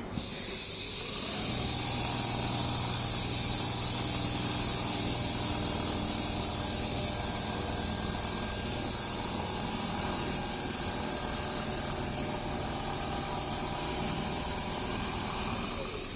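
Automatic large-panel sewing machine running: a steady machine hum under a strong airy hiss, with a low hum that comes in about a second and a half in and drops away about halfway.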